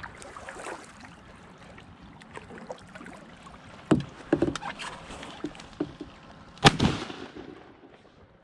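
Kayak gear knocking against the hull twice about halfway through, as a paddle is set down, then a single loud shotgun shot about two-thirds through that rings out for half a second.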